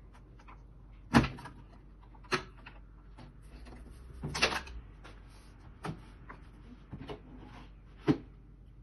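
Clicks and knocks as the brewing unit of a Unicum Nero coffee vending machine is unlatched and pulled out of its housing: a sharp click about a second in, a longer rattle near the middle, then several lighter knocks.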